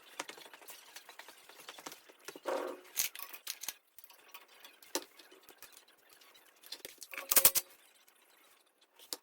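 Hand tools and metal engine parts clicking and clinking as parts are unbolted from a small engine, with a louder metallic clatter about seven and a half seconds in.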